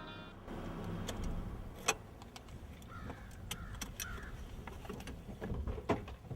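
A vehicle's low steady rumble with scattered clicks and a few sharper knocks, the loudest about two seconds in and again near the end. A guitar music cue fades out in the first half second.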